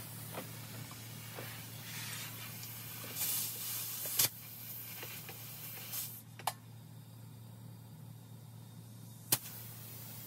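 Air hissing in short bursts at a motorcycle tire's valve as it is inflated from an air hose, with three sharp snaps about four, six and a half, and nine seconds in. A steady low hum runs underneath.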